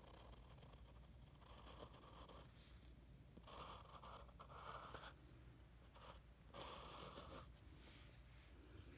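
Faint pencil scratching on paper, in a few separate stretches of drawing strokes.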